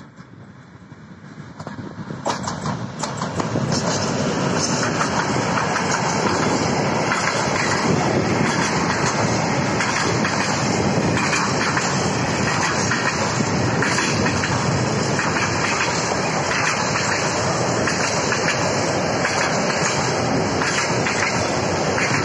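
Diesel locomotive 15D/A-039 approaching and passing, growing louder over the first few seconds. Then a long train of empty grain hopper wagons rolls by with steady wheel noise and repeated clacks over the rails.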